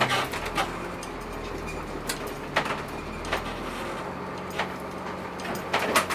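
Converted school bus engine idling steadily, with a few scattered clicks and knocks over the top.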